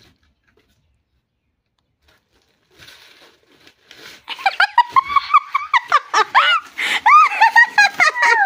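A young girl squealing and laughing in excitement, in rapid high-pitched bursts from about four seconds in, over the rustle of a cardboard box and plastic wrapping being torn open. The first three seconds are nearly silent.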